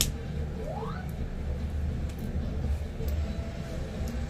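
Steady low background rumble, with a few faint clicks and a brief faint rising tone about a second in.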